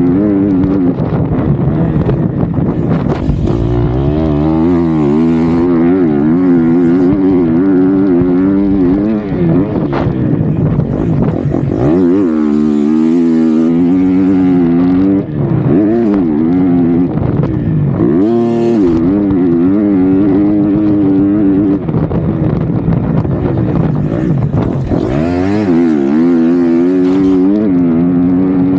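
KTM 250 SX-F's single-cylinder four-stroke engine revving up and down over and over as the dirt bike is ridden hard, its pitch climbing and falling every second or two. Around the middle it twice drops low and climbs sharply again as the throttle is chopped and reopened.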